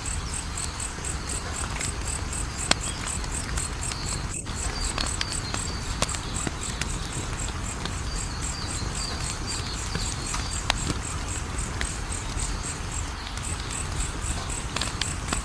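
Wood fire crackling, with scattered sharp pops over a low steady rush. Behind it an insect chirps high and evenly, about three chirps a second, pausing briefly near the end.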